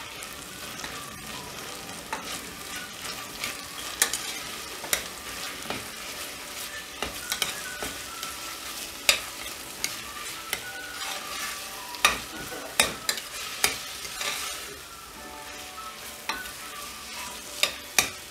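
Ginger-garlic paste with onions and tomatoes frying in oil in a steel pot, a steady sizzle as it is sautéed. A steel spoon stirs and scrapes through it, with sharp clicks of the spoon against the pot every few seconds.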